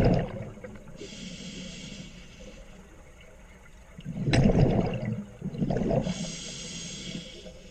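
Scuba diver breathing through a regulator underwater: a hissing inhale about a second in, then a burst of exhaled bubbles rumbling about four seconds in, followed by another hiss of inhaling.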